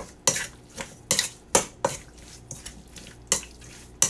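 Metal spoon stirring seasoned steak in a stainless steel mixing bowl, clinking sharply against the bowl's side at irregular moments, about half a dozen times, with soft scraping in between.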